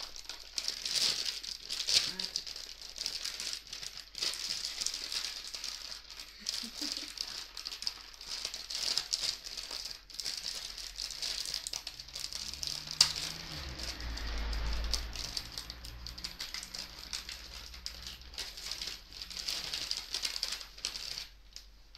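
A crinkly plastic bag of dog biscuits being opened and rummaged through, the hard biscuits rattling inside it, with sharp crackles throughout.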